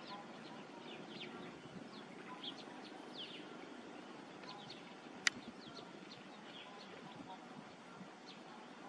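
Birds chirping in the background, short high chirps scattered throughout, over steady low outdoor noise; a single sharp click about five seconds in.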